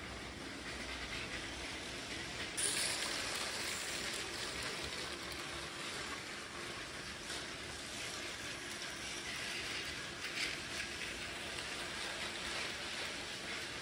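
Lego toy trains running on plastic track: a steady whirring hiss of small motors and wheels, with faint clicks over the track joints. The hiss steps up and gets brighter about two and a half seconds in.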